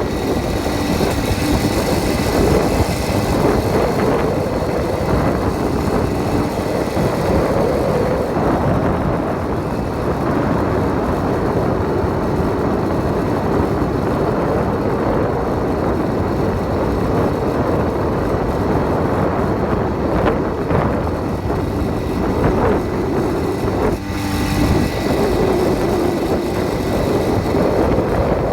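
Small 80cc two-stroke engine of a motorized bicycle buzzing steadily under way, its pitch wavering up and down with the throttle, with a brief drop and change about three-quarters of the way through. Wind rushes across the microphone throughout.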